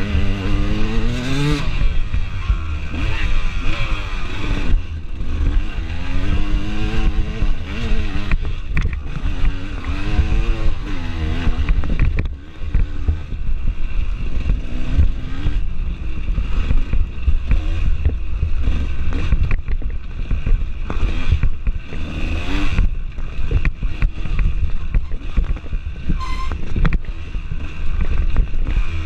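Dirt bike engine revving up and falling back again and again as the rider accelerates and shifts through the gears, heard from a handlebar-mounted camera, with a steady low rumble and knocks and rattles from the bike over rough ground.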